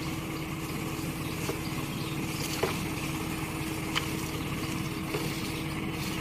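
A small engine running steadily at idle, a constant hum with a low rumble. A few light knocks stand out over it, the clearest about two and a half seconds in and again about four seconds in.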